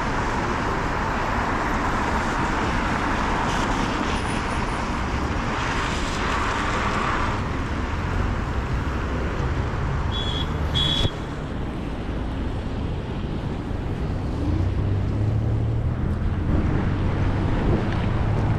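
Riding noise from a Ninebot electric scooter on a snowy path: wind buffeting the microphone and tyres on the wet snow, a steady rumbling hiss. Two short high beeps about ten seconds in.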